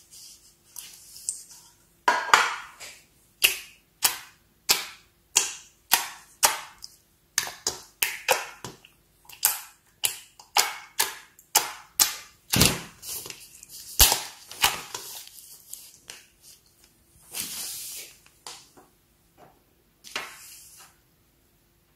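Clear glitter slime being poked and pressed by fingers, making a long series of sharp, wet pops and clicks, about two a second. Near the end the pops give way to a few softer squelching sounds as the slime is stretched.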